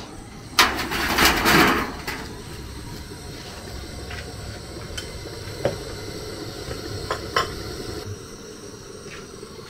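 Cooking sounds at a soup pot: a loud rush of noise near the start, then a steady low rumble and hiss, broken by a few sharp clinks of a utensil against the pot.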